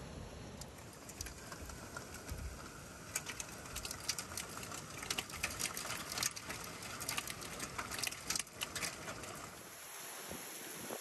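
Hailstorm: a steady hiss of heavy rain and falling hail, with many sharp clicks of hailstones striking hard surfaces from about three seconds in until shortly before the end.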